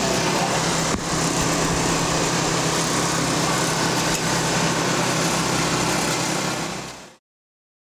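A steady engine drone with a broad hiss over it, running evenly and then fading out to silence near the end.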